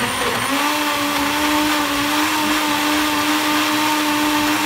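Gorenje countertop blender running at speed, blending a protein smoothie of milk, spinach and fruit. Its motor hum climbs a little about half a second in, then holds steady.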